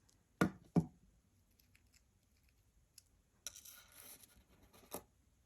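Two sharp clicks of jewellery pliers being handled, about half a second apart. Then a few faint ticks and a little over a second of light scraping and rustling, ending in another click.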